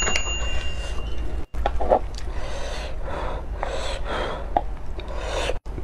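Close-miked eating sounds: breathy slurps and mouth noises in several swells, with a few faint clicks over a low steady hum, broken twice by a moment of silence.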